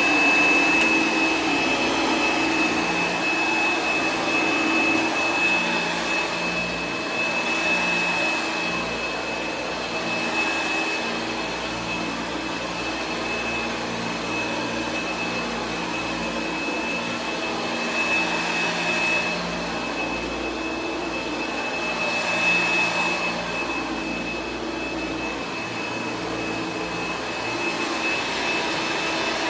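1964 Hoover Dial-A-Matic 1100 upright vacuum cleaner running steadily, a motor hum and rushing air under a constant high whine, its loudness rising and falling a little.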